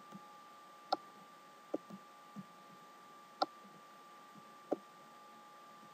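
Computer mouse clicking: five sharp, spaced-out clicks with a few softer taps between them, over a faint steady electrical hum.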